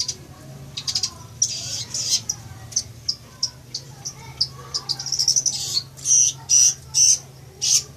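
Long-tailed shrike (cendet) singing: a run of quick, high chattering notes and short trills that grows louder in the second half, ending in a string of four loud, separate calls.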